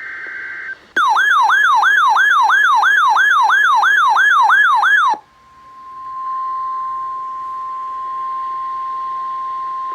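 Emergency Alert System alert tones: the end of a short SAME data burst, then a siren-like tone warbling up and down about three times a second for some four seconds. Then comes the steady 1050 Hz NOAA Weather Radio warning alarm tone, the signal that a warning message follows.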